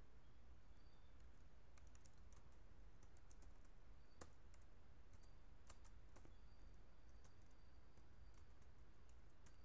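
Faint computer keyboard typing: irregular keystrokes starting about two seconds in, over a steady low hum.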